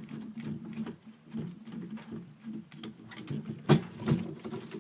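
Rapid ticking and scraping of a screwdriver turning long screws out of a streetlight's transformer base, with two louder metal knocks a little under a second apart near the end.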